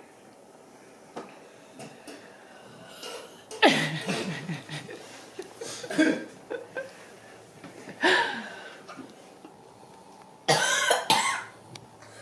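Children coughing in several short, sudden fits, about four in all, the longest near the end, from the burn of a hot pepper sauce they have just eaten.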